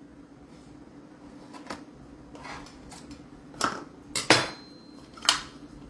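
A kitchen knife and a plastic measuring cup clinking and knocking against each other and the counter while flour is leveled off: about five separate light clinks, the loudest a bit past the middle.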